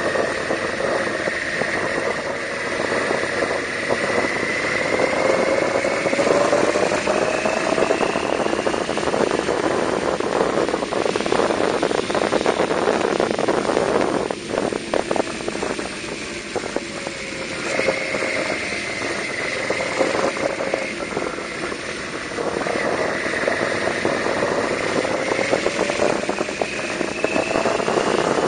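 Yamaha V-Max 1200's V4 engine under way on the road, its pitch climbing through several stretches of acceleration and dropping back when the throttle eases, about halfway through most sharply, over a steady rush of wind noise.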